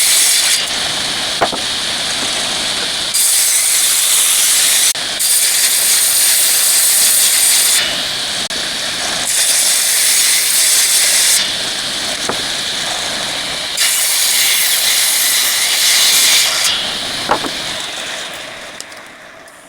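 A woodworking power machine sizing wood. It runs steadily, and during each of four passes of about two to three seconds it gets louder, with a hissing cut. The sound fades out near the end.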